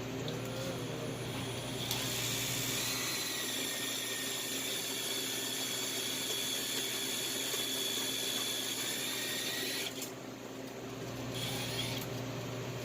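A steady hiss of pressurised gas escaping, with a faint high whistle. It starts about two seconds in, cuts off suddenly near ten seconds, and a shorter, weaker hiss follows near the end.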